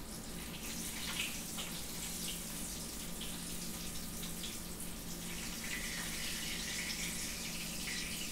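Breaded green tomato slices frying in hot grease in a skillet: a steady sizzle with scattered small crackles. A sizzle that lessens is the sign the slices are done.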